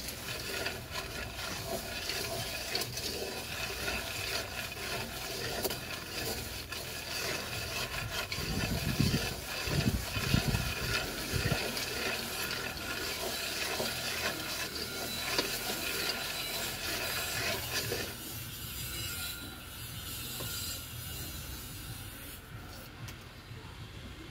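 Dry cocoa beans rattling and scraping against a black pot as they are stirred with a wooden stick during roasting. A few low thumps come near the middle, and the scraping is quieter for the last several seconds.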